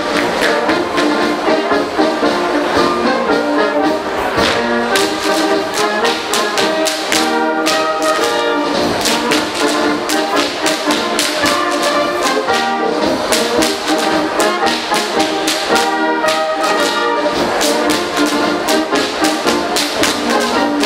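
Brass band playing a Bavarian Schuhplattler tune, with the dancers' sharp slaps on their leather shorts and shoes and stamps on the stage clicking in time with the music.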